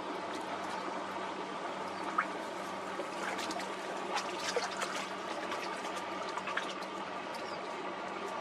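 River water lapping and trickling against the bank, with scattered small clicks and splashes over a steady low hum from a boat engine.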